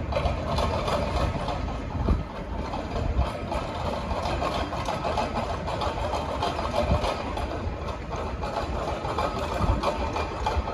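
Diesel engines of a V/Line VLocity diesel multiple unit running steadily.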